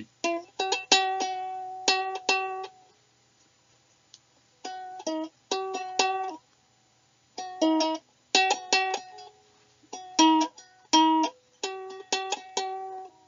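Plucked string instrument being retuned: single notes and short, quickly repeated strums with pauses between them, including a gap of about two seconds. The strings had gone out of tune and sounded off.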